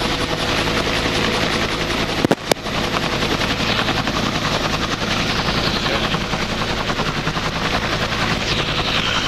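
Helicopter rotor and turbine engine running steadily, heard from inside the cabin with the side door open, as the aircraft holds a low hover just after lifting off. Two sharp clicks come a little over two seconds in.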